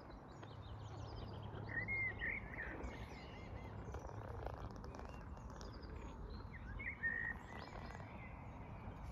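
Birds chirping and twittering over a steady low background rumble, with two louder chirping calls about two seconds in and again about seven seconds in.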